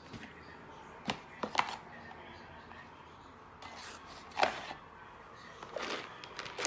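Items being handled and put into a fabric bag: a handful of short rustles and knocks a second or more apart.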